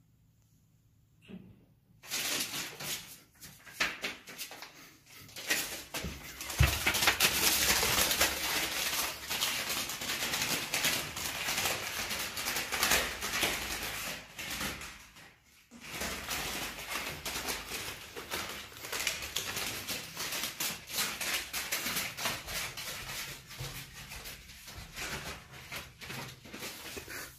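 Sheet of adhesive paper crackling and rustling as a cat stuck to it scrambles and runs, its paws peeling off the sticky surface. The rapid crackle starts suddenly about two seconds in and runs on loudly, with a brief lull just over halfway through.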